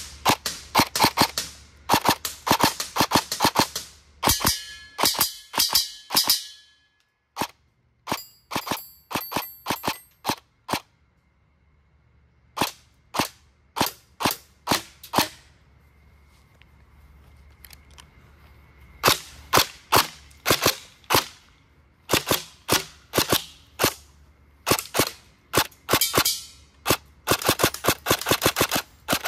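Airsoft electric gun firing rapid semi-auto shots in quick strings with short pauses between, powered by a 7.4 V 1500 mAh 50C LiPo, its MOSFET set to full active brake and level 6 pre-cocking. A few of the shots are followed by a short ringing.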